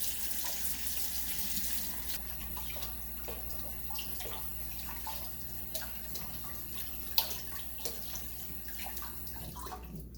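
Kitchen tap running into a sink while leaves are rinsed under it, with small splashes and knocks; one sharper knock about seven seconds in. The running water stops right at the end.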